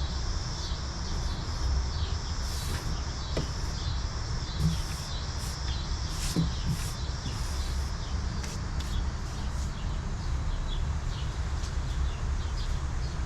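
Outdoor ambience: steady chirring of insects with a few short bird chirps over a low, steady rumble.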